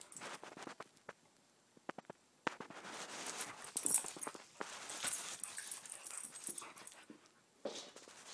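A boxer and a schnauzer play-fighting: dog play noises and scuffling, with a few sharp taps between about one and two and a half seconds in, then a longer noisy stretch of scuffling.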